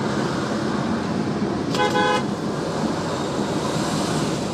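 Steady road and engine noise inside a moving Maruti Suzuki Alto 800's cabin, with one short car horn honk about two seconds in.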